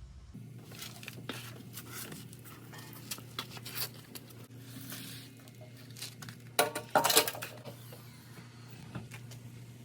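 Small metal parts or tools being handled: scattered clicks and clinks, with a louder burst of clanking about seven seconds in, over a steady low hum.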